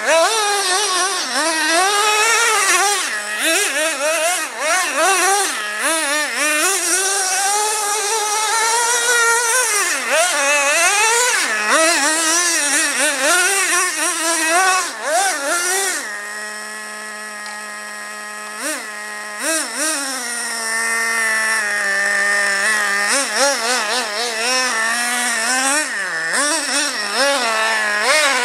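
Traxxas Revo 2.5 RC monster truck's 2.5 cc nitro two-stroke engine revving up and down as it is driven, its high pitch rising and falling constantly. A little past halfway it settles for several seconds to a steady lower note, then revs up again.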